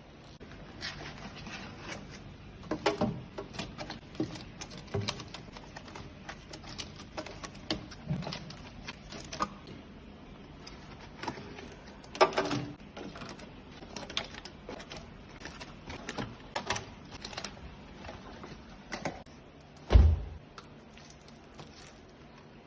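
Irregular clatter of objects being handled: many light clicks and knocks with some rustling, and one loud low thump about 20 seconds in.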